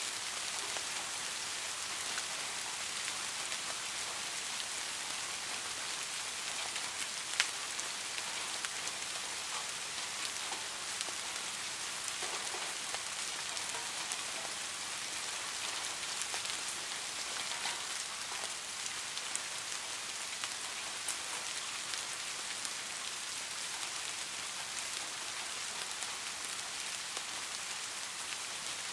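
Steady rainfall: an even hiss with scattered sharper drop hits, one louder drop about seven seconds in.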